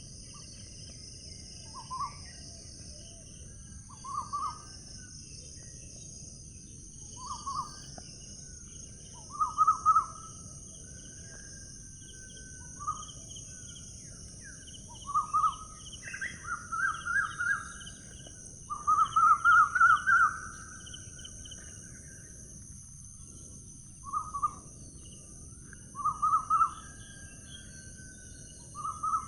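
Outdoor bird calls: short rattling calls repeated every couple of seconds, with longer trilled runs about halfway through. Under them runs a steady high-pitched insect drone and a low background hiss.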